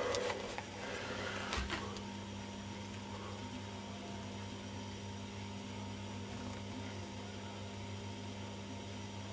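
Steady low electrical hum, with brief rustling and knocking of the camera being handled in the first two seconds.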